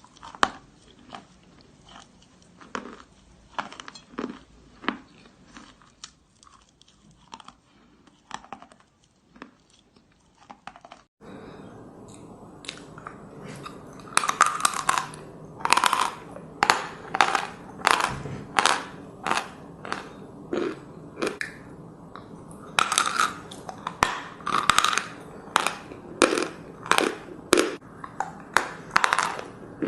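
Natural chalk crunching and being chewed close to the microphone, in a string of short, dry crunches. About eleven seconds in, the crunches turn louder and sharper, coming about one to two a second.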